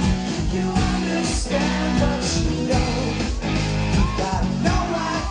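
Live rock band playing: electric guitar, bass and drums, with regular drum hits over a steady bass line.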